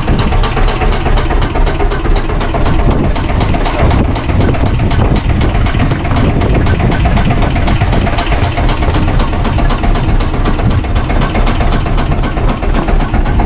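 Fishing boat's engine idling with a fast, even beat, over a heavy low rumble of wind on the microphone.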